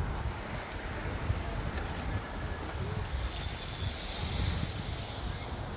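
Road bicycles passing on tarmac with a steady tyre hiss that swells about three seconds in, over wind rumbling on the microphone.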